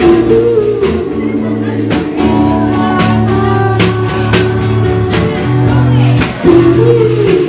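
Live singing with a strummed electro-acoustic guitar: a voice holding long, bending notes over steady low guitar notes, with sharp strums every second or so.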